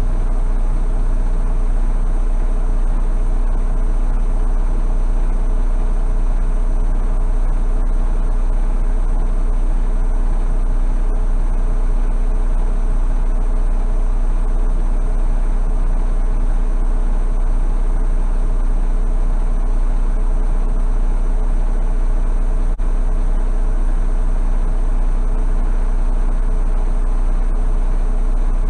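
Semi-truck's diesel engine idling steadily, a deep, even hum heard from inside the cab.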